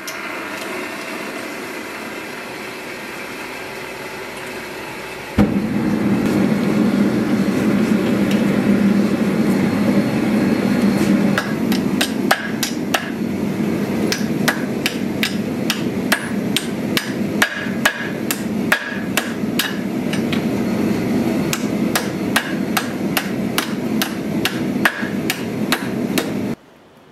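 Hand-hammer blows on red-hot steel held with tongs on an anvil, a quick irregular run of about two or three strikes a second starting about eleven seconds in, over the steady noise of a gas forge burner, which steps louder about five seconds in. The hammering and forge noise cut off abruptly near the end.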